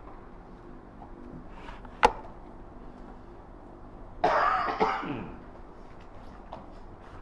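A man coughs and clears his throat once, loud for about a second, with the pitch falling at the end. A single sharp knock comes about two seconds before it.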